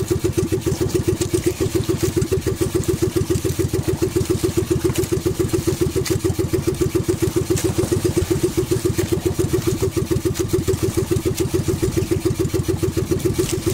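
Outrigger fishing boat's engine running steadily under way, a fast, even beat that does not change, with a hiss of wind and water over it.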